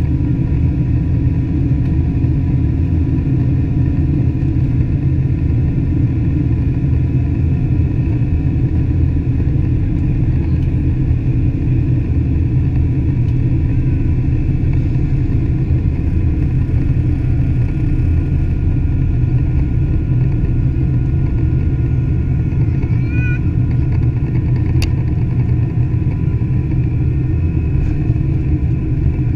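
Boeing 767-300 cabin during the takeoff roll: the twin turbofan engines at takeoff thrust and the runway roll make a loud, steady rumble, with faint steady whining tones above it.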